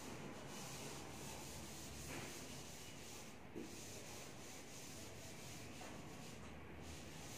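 Chalkboard being wiped with a duster: faint, steady rubbing of the eraser across the board as chalk writing is cleared, with one small knock about three and a half seconds in.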